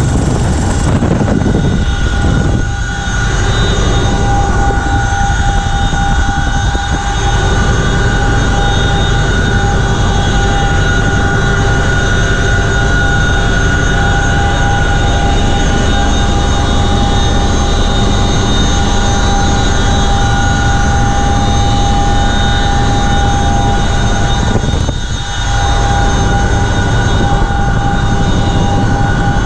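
CH-47F Chinook helicopter in flight heard from inside its cabin: a loud, steady drone of engines and rotors with a constant high whine running over it.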